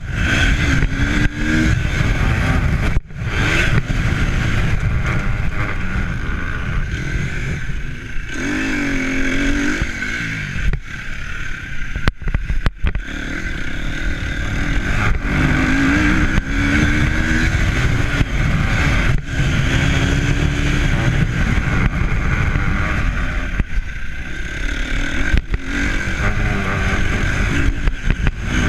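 Strong wind buffeting the microphone over a running motor whose pitch rises and falls several times.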